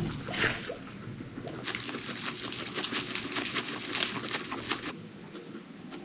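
Guinea pigs with a short squeak about half a second in, then a rapid run of dry clicks and rustles lasting about three seconds.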